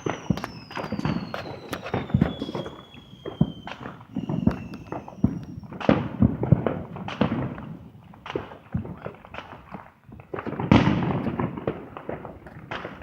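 Backyard consumer fireworks going off: rapid crackling pops all through, with a whistle falling in pitch over the first few seconds. The loudest burst of crackle comes about eleven seconds in.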